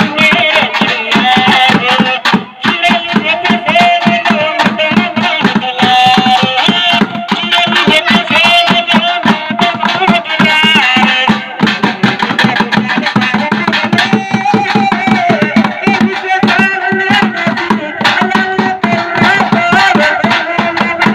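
A man singing a Gujarati song through a microphone and loudspeaker, over fast, steady drumming on plastic buckets beaten with sticks.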